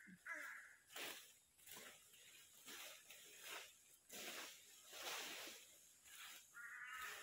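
Long-handled brooms sweeping dry fallen rubber-tree leaves across the ground, in repeated rustling strokes about one every second or less.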